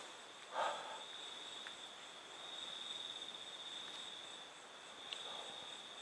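Night insect, cricket-like, trilling steadily at one high pitch, swelling a little in the middle. A brief rustle about half a second in.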